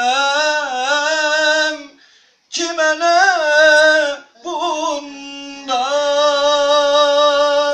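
A man singing a Turkish song solo with no accompaniment, in long wavering, ornamented held notes. He breaks off for a breath about two seconds in and again briefly a little after four seconds.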